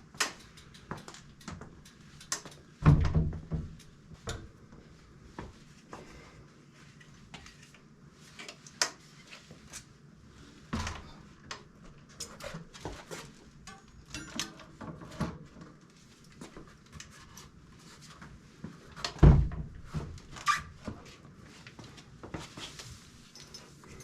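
Clatter of a fat-tire e-bike wheel being fitted back into the bike's frame. Scattered clicks and knocks of metal parts and tools, with two heavy thumps, one about three seconds in and one near twenty seconds in.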